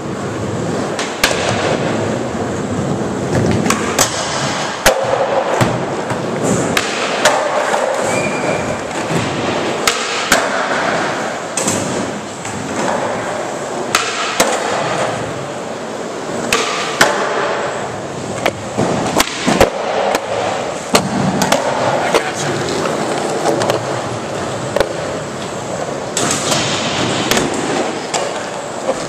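Skateboard wheels rolling on a smooth concrete floor, with repeated sharp clacks of tails popping and boards landing.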